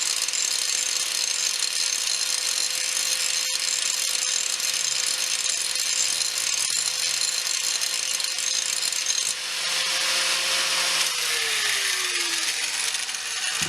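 Angle grinder with a grinding wheel running steadily as it grinds pits out of the steel faces of a body hammer. About eleven seconds in it is switched off, and its pitch falls as it winds down.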